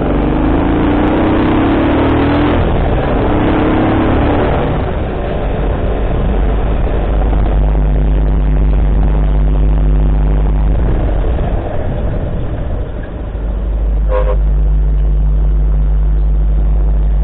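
Vehicle engine under way in traffic: its pitch rises twice in the first few seconds as it accelerates, then it runs steadily. A short horn toot sounds about fourteen seconds in.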